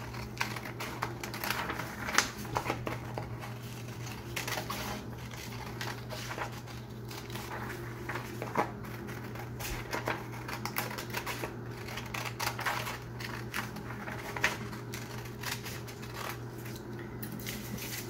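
Scissors snipping through printer paper in many short, irregular cuts, cutting a paper circle out of a sheet, with a steady low hum underneath.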